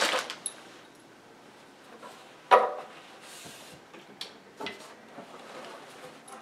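Flat-pack particleboard shelf panels being handled: one sharp knock about two and a half seconds in as a panel is picked up and set on edge, with a few light clicks and a brief rustle around it.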